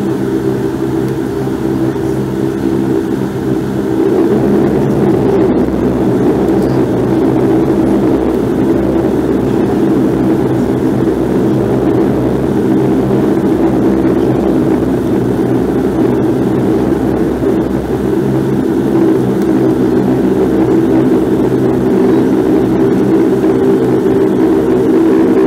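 Bombardier Q400 Dash 8's Pratt & Whitney PW150A turboprop engines and propellers running while the airliner taxis, heard inside the cabin as a steady drone made of several low tones over a rushing hiss, slightly louder from about four seconds in.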